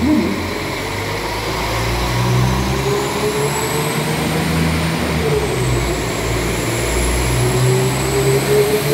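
Northern Class 195 diesel multiple unit pulling out under power, its engines running with a low rumble. A whine climbs in pitch as it accelerates, falls back about five seconds in, then climbs again.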